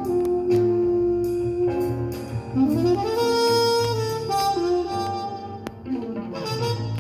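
Recorded music played through a single-ended Miniwatt EL3N valve amplifier: a melody instrument slides up into long held notes over a bass line.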